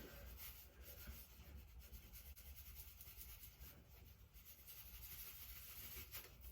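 Near silence with faint, scratchy rustling of something being handled.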